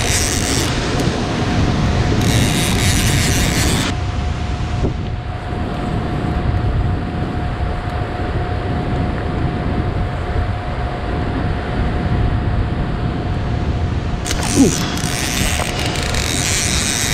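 Fishing reel ratcheting in bursts under the pull of a large catfish on the line, at the start, from about two to four seconds, and again from about fourteen seconds on. Under it runs a steady low rush of wind and current, and there is a single knock about fourteen and a half seconds in.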